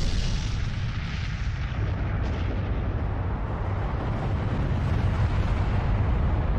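Deep, steady rumble with a hiss above it, like the long roll of an explosion.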